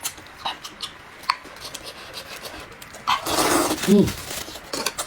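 Eating sounds: small clicks and chewing, then a loud slurp of noodles about three seconds in, ending in a brief low hum.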